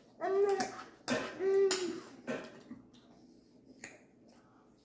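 A child's voice making two short wordless sounds about a second apart, the second a little longer, followed by a few faint table clicks.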